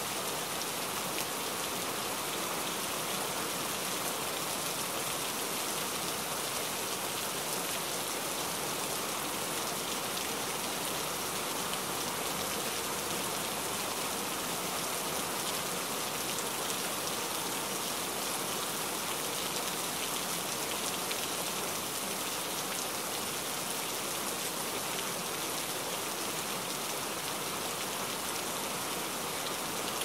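Steady rain falling, an even, unchanging wash of many drops.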